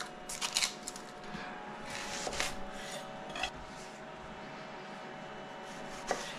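Knife and hands working an onion on a wooden cutting board: a few light, scattered knocks of the blade on the board and rustles of handling, under a faint steady hum.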